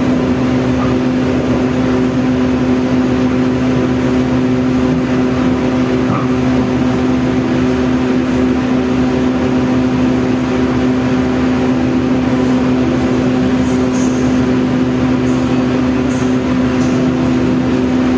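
KRD diesel commuter train heard from inside the carriage as it rolls slowly into a station: a steady engine hum with a few fixed tones over the low rumble of the running gear on the track.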